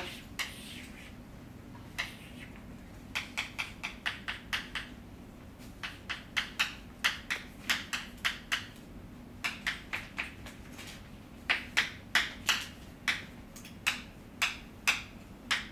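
Chalk on a blackboard: a long run of short, sharp taps and strokes as marks are drawn, coming in uneven clusters with brief pauses.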